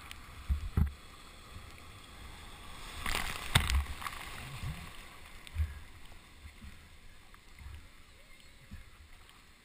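Breaking surf and whitewater washing over a GoPro as a bodyboarder pushes through a wave: low rumbling water with thumps, the loudest rush of water about three and a half seconds in.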